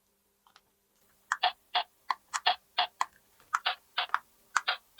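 Small hard plastic toy pieces clicking and tapping as they are handled and set down. After about a second of silence come a dozen or so short, sharp clicks, many in quick pairs.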